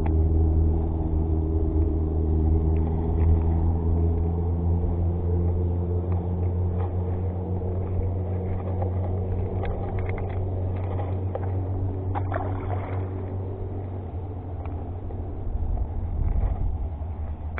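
An engine running steadily, its pitch and level slowly falling, with a few faint clicks about halfway through.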